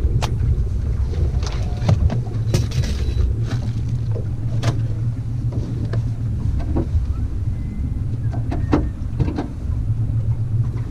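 Steady low rumble of a fishing boat's motor running, with scattered sharp clicks and knocks.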